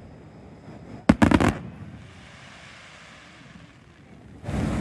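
Fireworks bursting overhead: a quick cluster of about three sharp bangs a little after a second in, followed by a fading crackle. A louder steady rushing noise comes in near the end.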